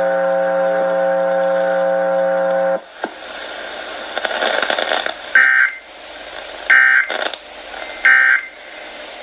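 Emergency Alert System tones played over a broadcast. A steady buzzing tone cuts off abruptly about three seconds in. Over a hissy background, three short, bright data bursts follow about 1.4 seconds apart, the pattern of the SAME end-of-message code that closes an alert.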